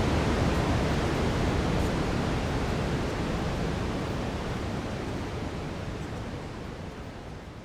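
Steady brown noise, a deep even hiss, fading out gradually.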